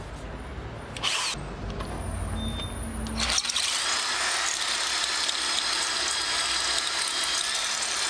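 Corded electric drill boring a hole into a metal brake master cylinder body, starting about three and a half seconds in and running steadily with a high grinding whine. Before it, a low rumble and one short click.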